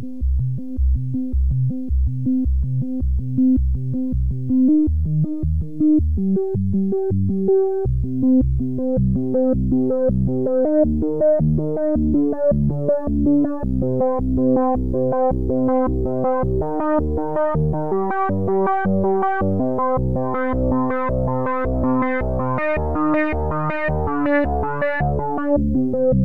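Background electronic music: synthesizer and keyboard notes pulsing on a steady beat. Higher notes join as it goes on.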